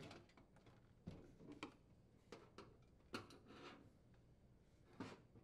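A few faint, scattered clicks and taps from the handling of a plastic refrigerator evaporator cover being pressed into place, and a nut driver being set to its screw, against near silence.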